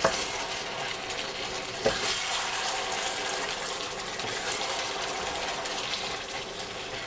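Jjamppong broth bubbling in a hot wok while a spatula stirs it, a steady watery boil. The spatula knocks against the pan once at the start and again about two seconds in.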